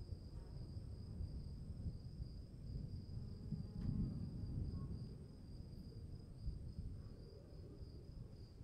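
A steady, high insect trill over a low storm rumble that swells about four seconds in and then eases.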